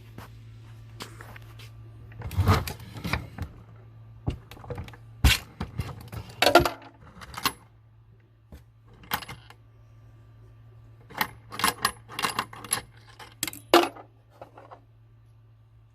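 Brass cartridge cases clinking and rattling against each other in the 3D-printed case feeder's collator as they drop into place, in irregular clusters of sharp metallic clinks.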